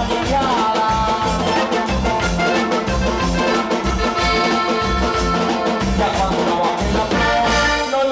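Live norteño band music: a Gabbanelli button accordion plays the melody over electric bass and drums keeping a steady beat.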